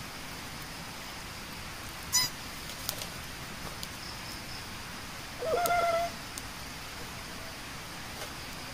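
Two calls from an unseen animal: a short, sharp chirp about two seconds in, and a longer call about five and a half seconds in that bends upward and then holds. The camper guesses it may be a bird. Under the calls there is a steady high hiss and a few faint crackles from a small campfire.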